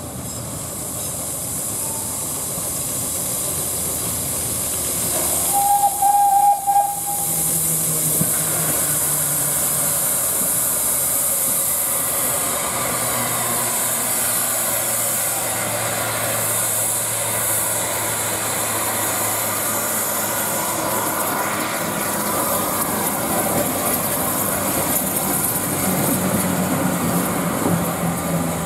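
Small industrial steam tank locomotive hissing steam as it works a short train, giving one short steam-whistle note about five to six seconds in, the loudest sound. A low steady rumble of the moving train follows under the hiss.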